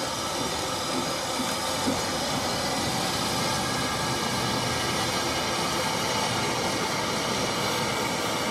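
Small narrow-gauge steam tank locomotive moving slowly past with loaded coal wagons, a steady loud hiss of steam escaping from it.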